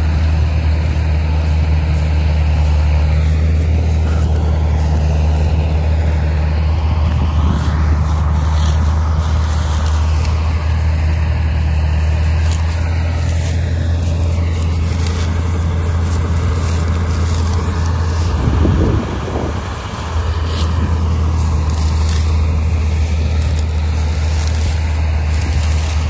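Massey Ferguson 241 tractor's diesel engine running steadily under harvest work, with a brief drop in level about three quarters of the way through.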